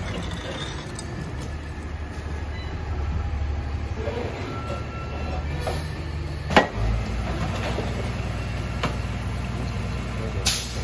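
Peterbilt rear-loader garbage truck's engine running at idle with a steady low hum. A loud bang about six and a half seconds in comes as a small recycling bin is emptied by hand into the rear hopper, and there is a shorter knock near the end.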